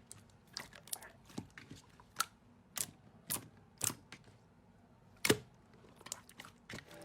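Slime being worked by hand, giving off irregular sharp clicks and pops, the loudest about five seconds in.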